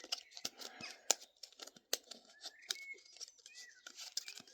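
Fingers picking at the tape and packaging of a mystery squishy box, making scattered light clicks, scratches and crinkles.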